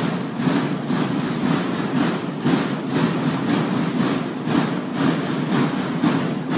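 Massed marching snare drums of a Mexican banda de guerra playing a continuous rattling cadence, with sharp accented strokes about twice a second.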